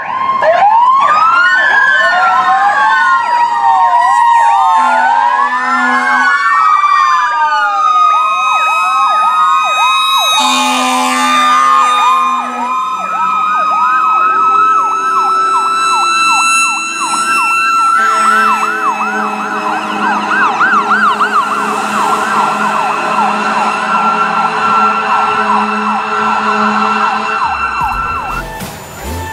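Several fire apparatus sirens sounding at once. They wail in overlapping slow sweeps, then switch to a fast yelp. Low air horn blasts come about five seconds in and again about ten seconds in.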